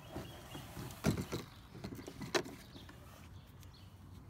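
Handling noise as fishing rods are moved about on a plastic kayak: rustling with two sharp knocks, about a second in and again about two and a half seconds in.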